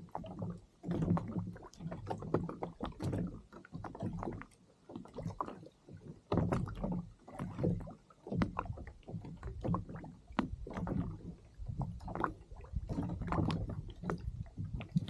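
Water slapping and knocking against a kayak's hull, in uneven bursts about once a second.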